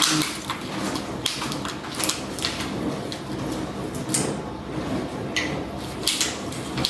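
Small plastic packaging being handled and torn open: irregular crinkling with many small clicks and ticks.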